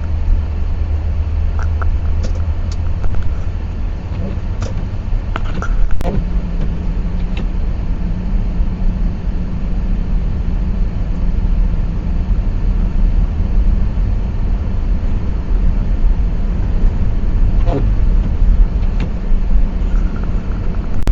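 Car driving on a snow-covered road, a steady low rumble of engine and tyres. A low steady hum joins about six seconds in, and a few short clicks come early and again near the end.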